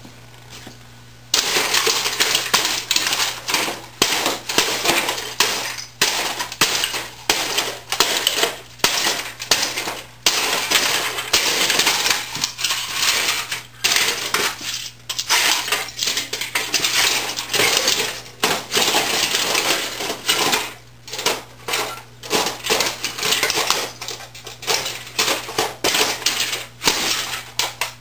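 Heavy Wesco leather boots stomping on and crushing an old 1980s word processor on a concrete floor: plastic casing cracking and crunching, with loose metal and plastic parts rattling and clattering in quick irregular bursts. It starts about a second in and keeps on with short pauses.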